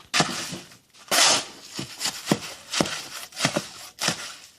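Shovel blade scraping and chopping through wet mortar, about one stroke every half second to a second, with the strongest stroke about a second in.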